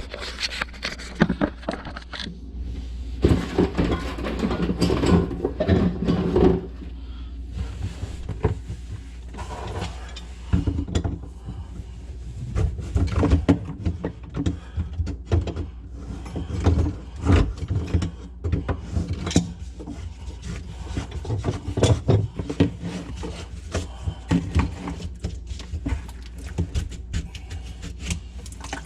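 Irregular clunks, knocks and scraping of kitchen sink drain pipes and fittings being handled and taken apart, with a denser stretch of rattling and scraping about three to six seconds in.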